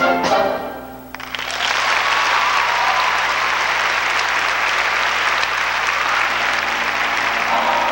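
A show choir and its band end a song on a held final chord that cuts off about a second in, and audience applause follows. Near the end the choir starts singing again.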